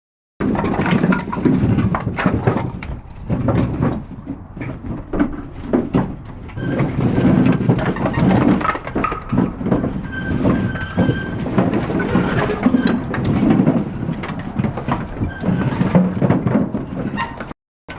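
Firewood being unloaded and tossed onto a pile: an irregular run of wooden knocks and thuds over a steady low rumble.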